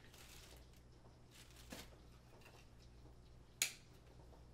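Faint handling of a rugged plastic phone case, with a soft rustle and then one sharp click about three and a half seconds in, over a low steady hum.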